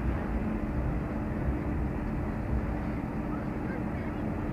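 Trolley-style bus engine running with a steady drone as it rolls by in street traffic, over a low rumble.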